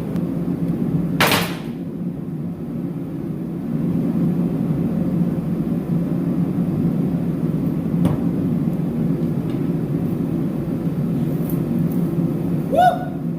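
Torpedo heater running with a steady low roar. A short sharp hiss comes about a second in, and a brief rising squeak near the end.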